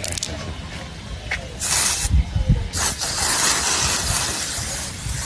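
Anessa aerosol sunscreen spray can being sprayed in two hissing bursts: a short one about a second and a half in, then a longer one of a bit over two seconds. A few low thumps come with the first burst.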